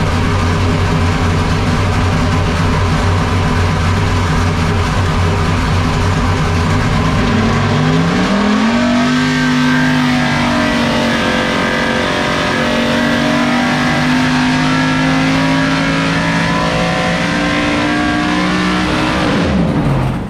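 Dodge R5P7 NASCAR small-block V8, naturally aspirated and carbureted, running loud on an engine dyno. About seven seconds in it climbs quickly in revs, then pulls up slowly through a dyno sweep, and near the end the revs drop off sharply.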